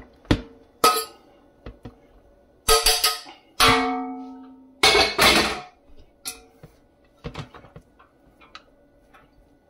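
Metal spoon and saucepan knocking and scraping cooked rice out into an enamel roasting pan: a run of clanks, several of them ringing on for up to a second, growing sparser and fainter near the end.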